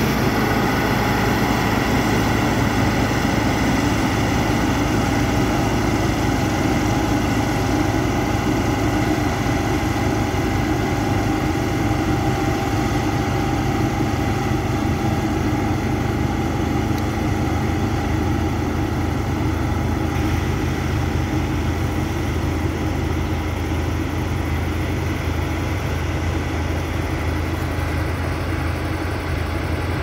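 Diesel engines of a combine harvester and tractor running steadily in the field, a continuous low mechanical hum with no breaks. The low hum shifts slightly and eases a little about halfway through.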